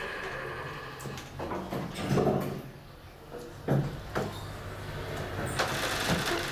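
DEVE hydraulic elevator with its doors shut: a series of clunks and thuds from the doors and car over a low steady hum as the car gets ready to rise, the loudest about two and about three and a half seconds in.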